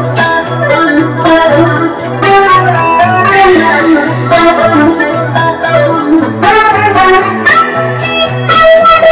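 A live instrumental jam: an electronic keyboard with an organ sound and an electric guitar playing over a repeating low bass figure of about two notes a second.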